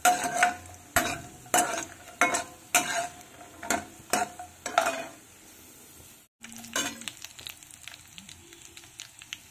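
Steel ladle knocking and scraping against a kadai about eight times, each knock with a short ring, as fox nuts (makhana) are stirred in hot ghee. After a brief cut about six seconds in, quieter sizzling and crackling of nuts frying.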